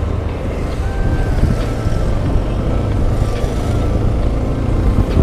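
Bajaj Pulsar 220 motorcycle riding through city traffic: a steady engine rumble with wind buffeting the microphone.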